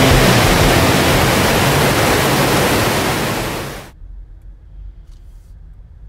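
Waterfall roar, a loud steady rush of falling water, cutting off abruptly about four seconds in to a faint low hum.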